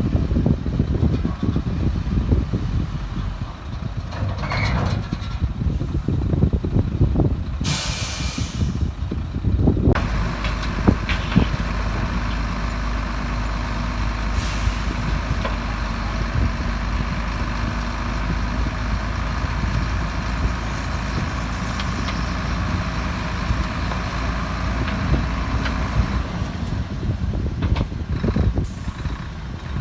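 Heavy diesel dump truck running, with a loud air-brake hiss lasting about two seconds around eight seconds in and a shorter hiss near the end; between them the engine settles into a steady drone.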